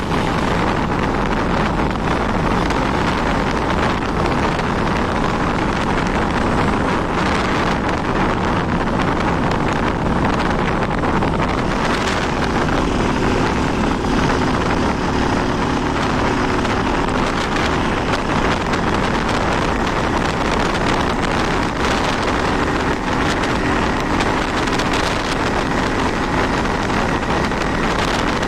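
Honda 160 single-cylinder motorcycle being ridden, with heavy wind rushing over the microphone and the engine's steady hum showing faintly beneath it from about halfway in.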